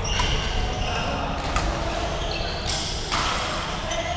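Busy badminton hall: a few sharp racket hits on shuttlecocks and short shoe squeaks on the wooden court floor, over the steady background noise of the hall.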